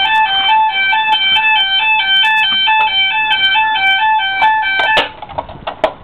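Electronic fire alarm sounder going off with a rapid two-tone alternating alarm tone. It cuts off suddenly about five seconds in, followed by a few clicks.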